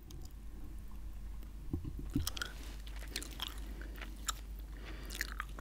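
Chewing gum close to the microphone: irregular wet clicks and smacks of the mouth.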